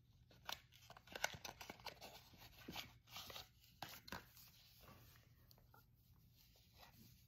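Faint handling of a small cardboard box being opened and a compact mirror slid out: light clicks, scrapes and rustles, busiest in the first four seconds and sparser after.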